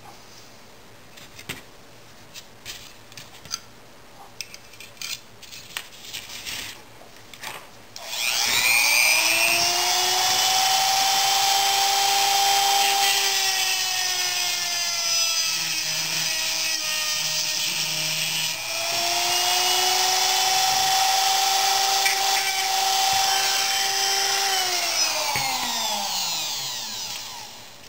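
Light handling taps, then a Dremel rotary tool with a cut-off wheel whines up to speed about eight seconds in and runs with a steady high whine. Its pitch sags for a few seconds in the middle as the wheel is loaded cutting through a deformed wire, then recovers, and the tool spins down near the end.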